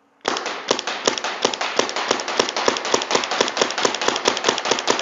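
Planet Eclipse EMF100 magfed paintball marker firing a steady string of shots, about three a second, starting a quarter second in. Each shot echoes in an indoor hall.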